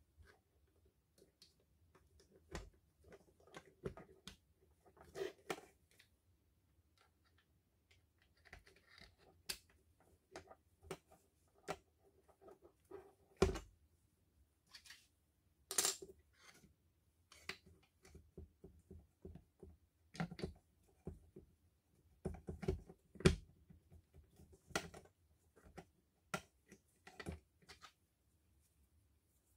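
Irregular small clicks and knocks of cordless drill parts being handled and fitted by hand, with a few sharper knocks scattered through.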